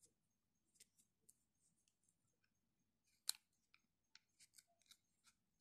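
Faint plastic clicks and taps of a battery being slid back into a Noise Play action camera's battery compartment, with one sharper click about three seconds in.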